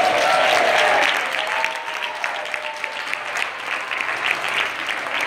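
Audience applauding: many hands clapping steadily, with a voice calling out over the clapping during the first second or so.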